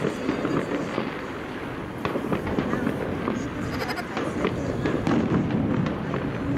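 Fireworks bursting and crackling, with many short pops and a low rumble, over people talking in the background.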